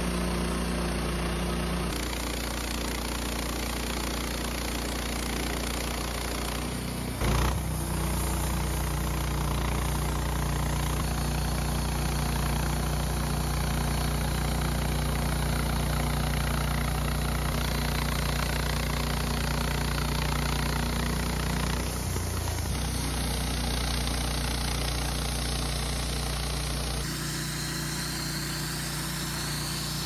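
Wood-Mizer LT15 portable band sawmill running steadily, its engine humming while the band blade saws through a sugar pine log. The sound changes abruptly a few times, with a brief louder knock about seven seconds in.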